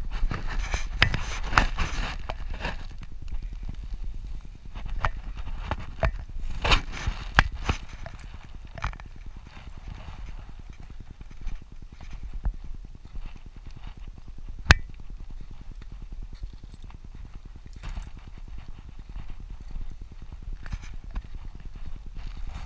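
Footsteps crunching on a dirt and gravel trail at a walking pace, with scuffs and knocks and one sharp click about fifteen seconds in.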